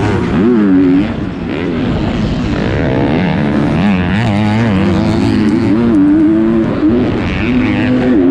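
On-board sound of a 250-class four-stroke motocross bike at race pace: the engine revs rise and fall repeatedly with throttle and gear changes, easing off briefly about a second in.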